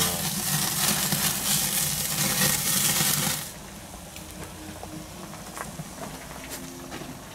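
Beef steaks searing on the grate of a Monolith kamado charcoal grill: a loud, steady sizzle of fat dripping into the flames. It cuts off suddenly about three and a half seconds in, leaving only faint clicks.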